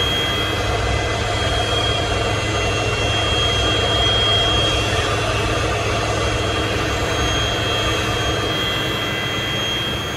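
Boeing 727's Pratt & Whitney JT8D turbofan engines running steadily, heard from inside the cockpit: a constant high whine over a low hum.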